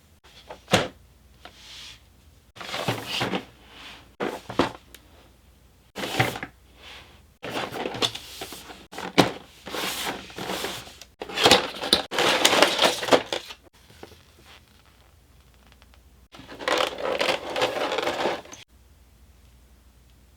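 Toy packaging being handled and opened: a sharp click about a second in, then a series of rustling, scraping bursts, each one to three seconds long with short pauses between.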